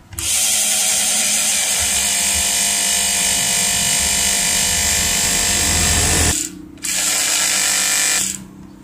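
Maspion electric hand mixer's small motor, casing open, test-running at speed with a loud, steady whirring whine, its rusted armature freshly sanded clean so it now spins. It runs about six seconds, cuts out briefly, runs again for about a second and a half, then stops.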